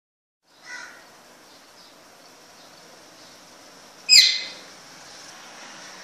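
African grey parrot calling: a soft short call about a second in, then a loud, brief screech that falls in pitch a little after four seconds in.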